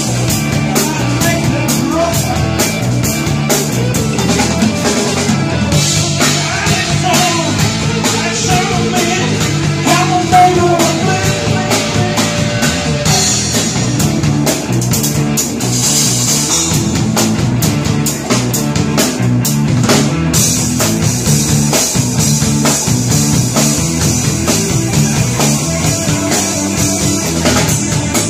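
A live rock trio playing: electric guitar through a Marshall amp, electric bass and drum kit, with a steady drum beat under the guitar and bass.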